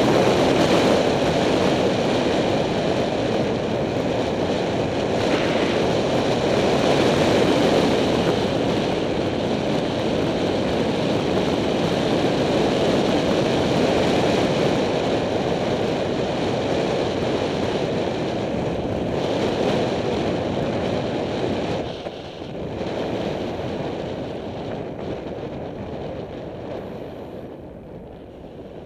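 Wind rushing over a Contour HD helmet camera's microphone during a fast bicycle descent: a steady, loud rush of air noise. It drops suddenly about three-quarters of the way through and grows quieter toward the end as the bike's speed falls.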